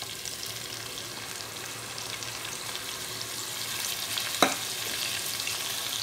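Chicken pieces frying in hot oil in a pot, a steady crackling sizzle, as green chilli and yogurt paste is poured in. A single sharp knock about four and a half seconds in.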